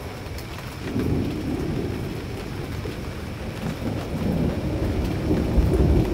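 Thunder rumbling in long rolls over falling rain, swelling about a second in and growing loudest near the end.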